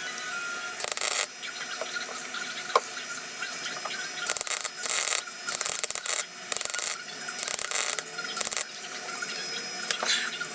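MIG welder tack-welding a sheet-steel floor panel into place: a series of short crackling bursts, each under half a second, with a steady hum beneath.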